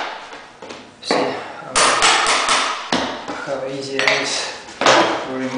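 Hammer striking baseboard as it is worked off the wall: several sharp knocks at uneven intervals.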